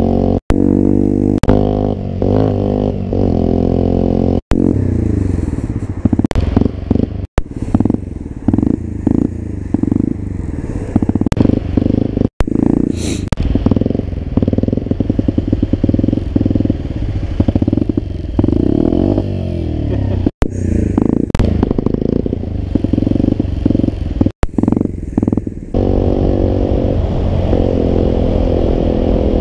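Small minibike engine running while riding, its pitch rising and falling with the throttle and gear changes, then settling to a steadier, lower note near the end. The sound cuts out for an instant several times.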